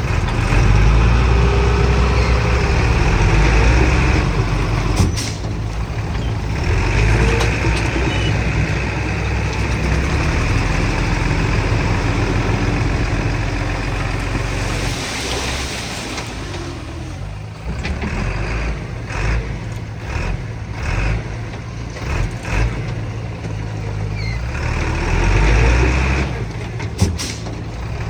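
Diesel engines of heavy earthmoving machinery working under varying load: a steady low rumble that rises and falls. A brief hiss comes about halfway through.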